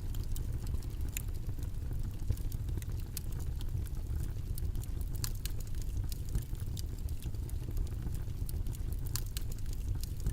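Steady low rumbling ambient noise with scattered faint crackles and ticks at uneven intervals.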